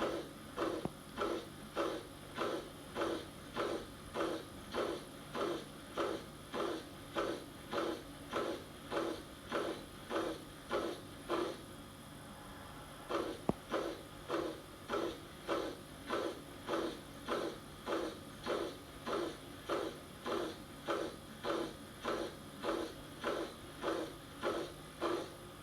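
Heart sounds of atrioventricular valve (mitral or tricuspid) regurgitation: a high-pitched, blowing holosystolic murmur with each beat, repeating about twice a second with a short break near the middle.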